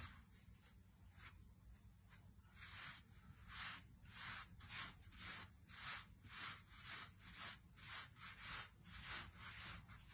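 Hands folding and shaping pizza dough into a ball on a floured wooden board: soft, faint rubbing swishes, a few at first, then regular at about two a second from a couple of seconds in.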